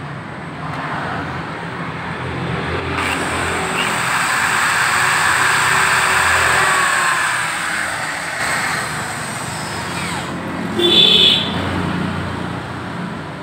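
Corded electric drill spinning a motorcycle engine valve against its seat to lap it: a steady high motor whine over a gritty grinding, building to its loudest around halfway, with a short sharper sound near the end.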